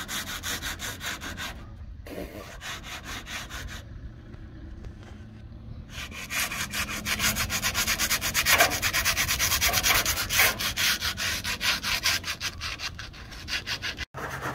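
Flaky old paint being sanded back by hand on a weathered timber fascia, in quick, even back-and-forth scrubbing strokes that scuff the surface ready for repainting. The strokes grow louder about six seconds in.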